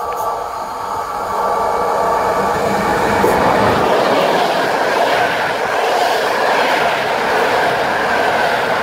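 EP09 electric locomotive and its Intercity passenger coaches passing through the station at speed. It grows louder over the first second and a half as it arrives, then holds a steady rush of wheels on rail as the coaches go by.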